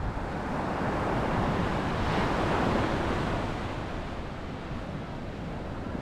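Sea waves breaking and washing up a sandy beach: one swell of surf rises from about half a second in, is loudest around two to three seconds, then eases off. Wind buffets the microphone with a low rumble underneath.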